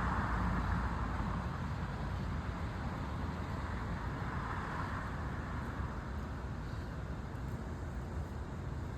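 Road traffic noise: a passing car's tyre hiss that fades away over the first five seconds or so, over a steady low rumble of traffic.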